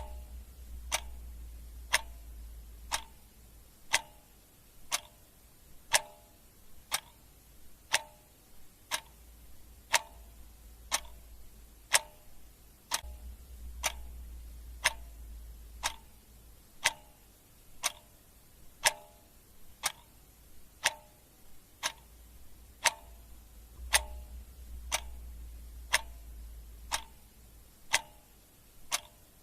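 Clock ticking steadily, about one tick a second, with a faint low hum coming and going underneath.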